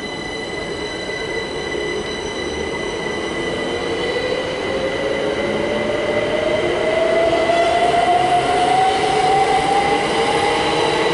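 A pair of Class 387 electric multiple units pulling away and accelerating. The traction motor whine climbs steadily in pitch and grows louder, with steady high-pitched tones above it.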